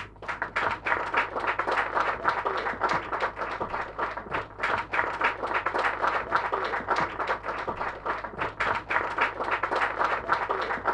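A crowd applauding, a dense, steady patter of many hands clapping, over a low hum.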